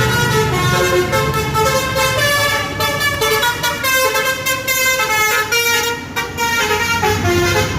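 Bus-mounted telolet 'basuri' multi-tone horn playing a quick tune of stepped notes, with a bus engine running underneath.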